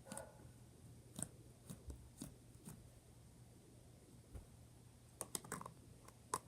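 Clicky glitter slime being worked in its container, giving off faint, scattered small clicks and pops, several close together about five seconds in.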